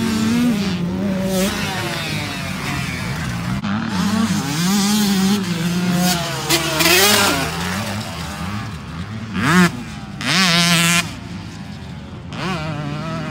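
Motocross dirt bike engines revving, the pitch climbing and dropping again and again as the throttle is opened and shut over the jumps. The loudest surges come a little before and just after ten seconds in.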